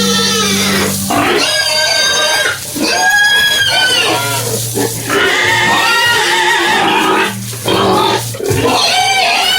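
Pigs squealing in high-pitched calls over background music with sustained low notes.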